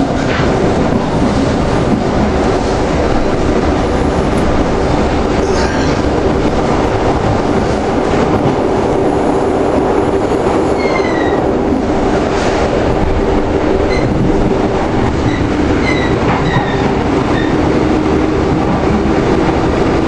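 Fertagus suburban electric train running at speed, heard from inside the passenger car: a steady rumble of wheels on rail with a low, even motor hum. A few brief, faint high squeaks come through about halfway through and again a few seconds later.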